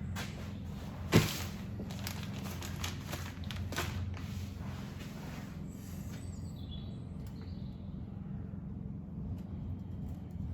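Scattered clicks and knocks of tools and metal parts being handled on a tractor engine during a strip-down, with one sharp knock about a second in, over a steady low hum.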